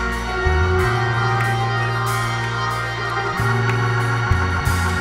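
Church band music: sustained organ chords over an electric bass guitar playing deep notes that change every second or so, with cymbal washes.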